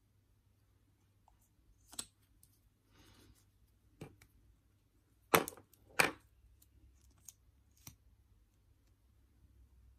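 Sharp clicks and knocks of small makeup tubes and containers being handled and set down on a table, with a brief rustle. The two loudest knocks come close together about halfway through.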